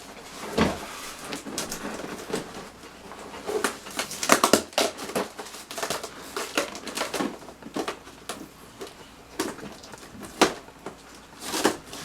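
Cardboard box and packing material being handled: irregular rustling, crinkling and scraping with sharp knocks, the loudest about four seconds in and again about ten seconds in.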